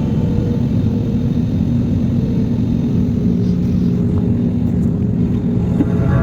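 Steady low rumble of a jet airliner's engines and airflow, heard from inside the cabin.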